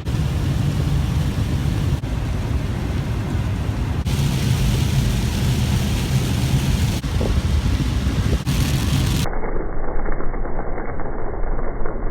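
Heavy rain pouring down, a loud, steady hiss and rumble. Near 9 seconds in, the sound turns duller and more muffled.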